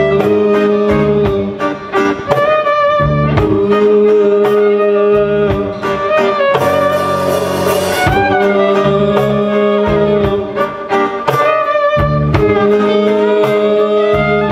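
Folk-rock band playing live: a fiddle carries a sustained, wavering melody over strummed acoustic guitar, electric bass and a drum kit keeping a steady beat, with a cymbal wash a little past halfway.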